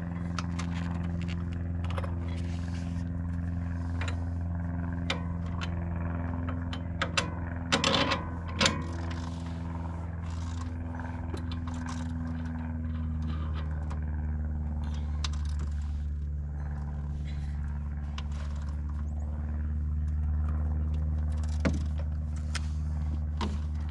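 A steady low machine hum with scattered metallic clicks and scrapes, and a cluster of louder clanks about eight seconds in.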